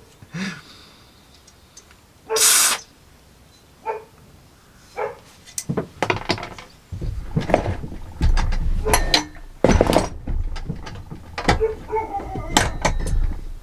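A short puff of breath blown through a chainsaw bar's groove and oil hole to clear out debris. This is followed by a run of clicks, knocks and metal clatter as the bar and chain are handled on a workbench, growing busier and heavier in the second half.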